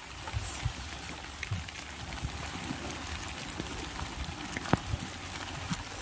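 Steady rain falling, with scattered light drops and taps and one sharper tap near the end.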